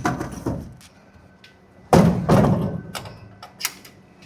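Several knocks and thuds of hard objects being handled and set down, a short cluster at the start and a louder group about two seconds in, followed by a few sharp clicks.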